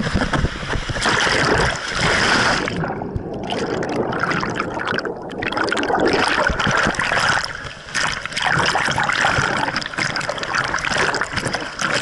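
Water rushing and splashing around a camera sliding down a water-park slide and into the splash pool. The sound goes dull for a couple of seconds about three seconds in as the camera goes under the water, then churning splashes return.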